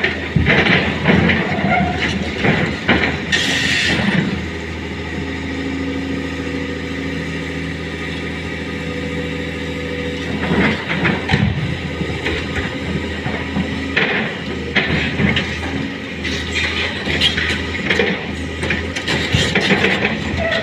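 Excavator's diesel engine and hydraulics working, with clanks and knocks, and a short hiss about three seconds in. From about four seconds the engine holds a steady hum for some six seconds, then the clattering work resumes.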